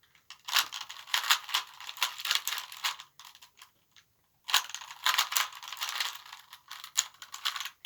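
Plastic Rubik's Cube being turned fast by hand: quick runs of clacking layer turns, with a pause of about a second in the middle. This is the cube's last-layer stage of a speed solve.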